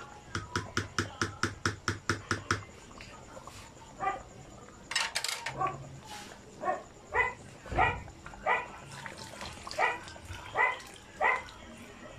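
A dog barking repeatedly, short barks coming about once or twice a second through the second half. Before that, about a dozen sharp clicks come in a quick, even run over the first two seconds or so.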